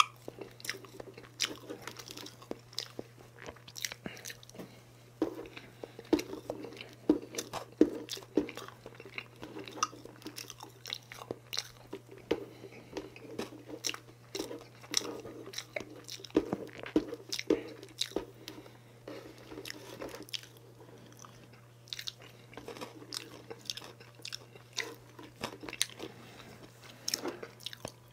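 Close-miked chewing of soft chocolate layer cake, with irregular wet, sticky mouth clicks and smacks.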